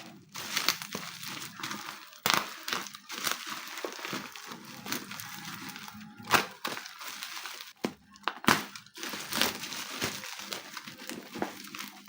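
Parcel packaging crinkling and rustling as it is handled and unwrapped, in irregular bursts with sharp crackles.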